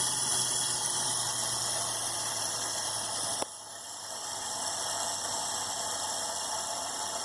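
Compressed air hissing against a fidget spinner clamped in a holder, the spinner whirring at high speed. About three and a half seconds in there is a sharp click and the sound drops off, then builds back up to a steady hiss and whir.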